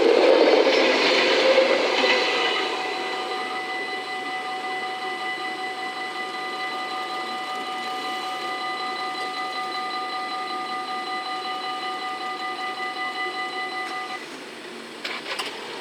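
VIRM double-deck electric train passing close by, its rush fading over the first two or three seconds. Under it the level-crossing bells ring steadily with a quick pulse, then stop about two seconds before the end.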